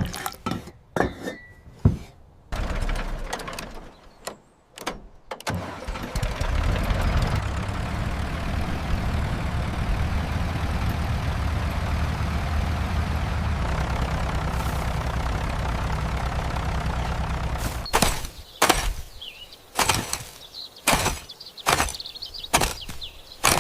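A few sharp clicks and knocks, then an engine starting and running steadily at a low drone for about twelve seconds before it cuts off abruptly, followed by a run of separate sharp knocks.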